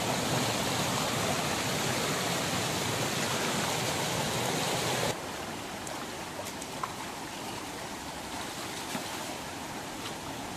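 Small river's water rushing steadily. About halfway through it drops suddenly to a quieter rush, with a few faint clicks after.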